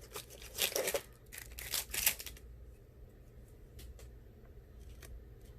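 Rustling and scraping from small tools and phone parts being handled on a work surface, in bursts over the first couple of seconds, then a few light clicks.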